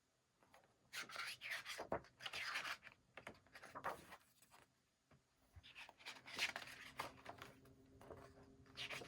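Paper being handled as photobook photos and inserts are taken out and turned over: several short bursts of rustling and rubbing.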